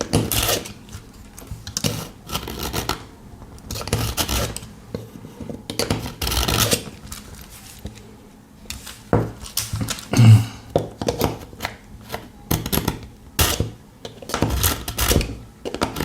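Pocket knife blade drawn again and again through the carbide slot of a handheld pull-through knife sharpener, a harsh rasping scrape on each stroke, roughly one stroke a second, as the carbide shaves metal from the blunt edge.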